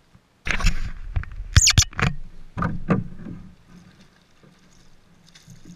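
Hooked bass thrashing and splashing at the surface beside a small boat, a burst of loud splashes and knocks over the first three seconds, then quieter.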